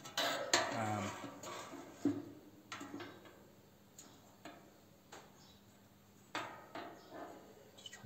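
Steel bar knocking and scraping against a steel frame as it is shifted into place by hand: a series of irregular light metallic clinks, some ringing briefly.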